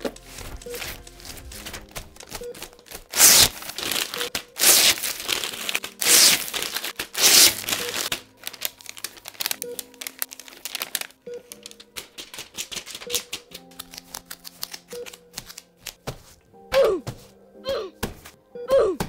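Gloved hands handling surgical dressing pads and their packaging: loud crinkling and rustling about three to eight seconds in, with scattered clicks and knocks, over background music with a repeating note. Several short squeaks near the end.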